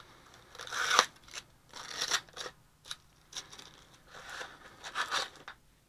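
Handling noise: a series of about six scraping, rustling strokes, irregularly spaced, the loudest about a second in.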